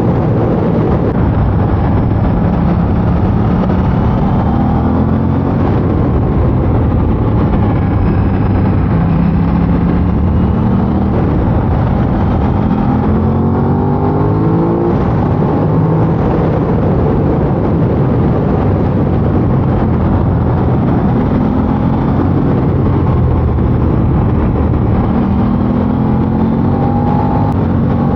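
Aprilia RS660's parallel-twin engine on its stock exhaust, pulling hard under acceleration: the revs climb, drop at each gear change and climb again, several times over.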